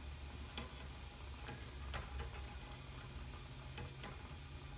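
Light metallic clicks, about seven in all and irregular, as small steel spacers are jostled in a stainless wire strainer sitting in a pot of hot Parkerizing (phosphate) solution. Under them are a faint fizzing hiss from the bath working on the steel and a steady low hum.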